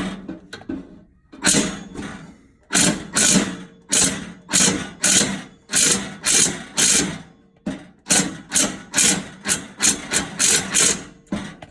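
Ratchet wrench being cranked back and forth on a stuck exhaust bolt that has been soaked with WD-40. It makes a rhythmic run of short ratcheting strokes, about two a second, coming a little faster near the end.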